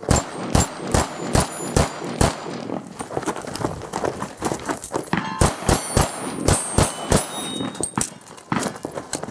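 Revolver fired in two rapid strings, about six shots in just over two seconds, then a pause of about three seconds for a reload, then another quick string of about six. Steel plates ring after hits.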